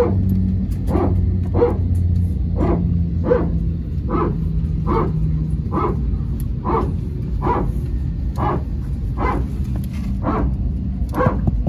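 Airbus A321's hydraulic power transfer unit (PTU) 'barking' under the cabin floor: a long run of short, harsh, bark-like pulses, a little more than one a second, over the aircraft's steady low hum. It is the PTU cycling to pressurise one hydraulic system from the other, the well-known 'barking dog' of the A320 family.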